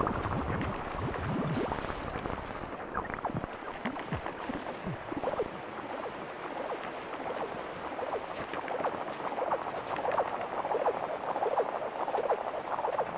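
Lo-fi ambient electronic music from a cassette release: a dense, irregular texture of crackles and short chirping flicks over a hiss, with no beat.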